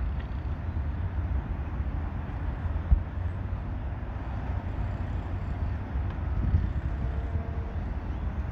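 Steady low outdoor rumble with two brief knocks, one at the start and one about three seconds in.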